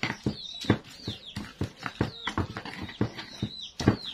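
Stone pestle knocking and grinding in a stone mortar (cobek and ulekan) as sambal with tomato and chilli is crushed: irregular sharp knocks, about three a second, the loudest near the end. Repeated high chirps run in the background.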